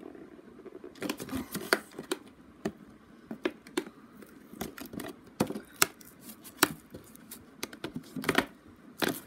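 Fingers picking at and peeling sticky tape on a small cardboard box, with the cardboard being handled: irregular sharp clicks and crackles.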